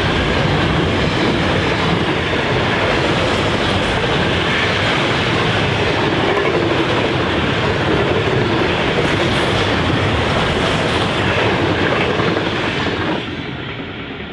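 Container wagons of an intermodal freight train rolling past at speed, a steady loud rumble with the clickety-clack of wagon wheels on the rails. The noise drops away sharply about a second before the end as the last wagon passes.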